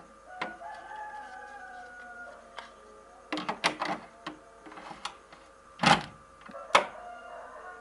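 Fowl calling: one long call with a slightly falling pitch, then a run of sharp clicks and two loud short knocks.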